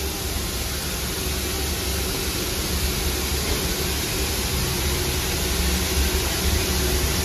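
Steam locomotive running: a steady rushing hiss with an uneven low rumble underneath.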